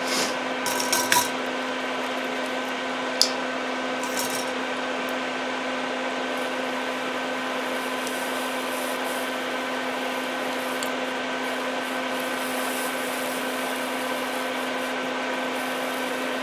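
Electric fan running beside a soldering job: a steady whirring hum that does not change. A few light clicks come in the first few seconds.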